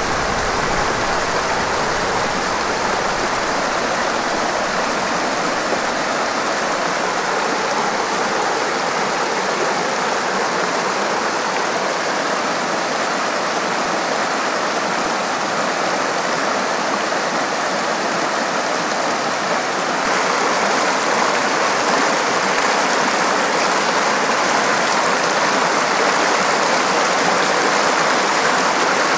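Rocky mountain creek rushing and tumbling over boulders in small cascades: a steady, full white-water rush, a little louder from about twenty seconds in.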